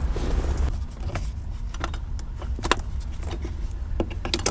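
Scattered sharp metallic clicks and taps of hand tools working on a car's shifter assembly to remove the shifter bushings, over a steady low rumble.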